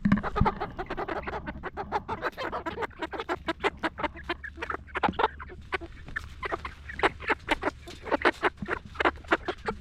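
Chickens clucking: many short calls in quick succession, some louder and sharper than others.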